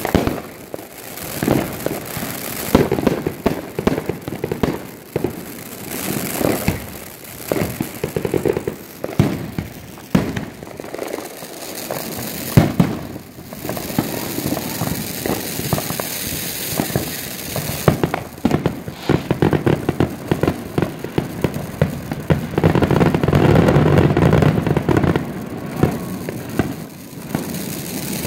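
Consumer fireworks going off all around: a near-continuous run of sharp bangs, pops and crackling from aerial shells and ground fountains, thickest for a couple of seconds late on.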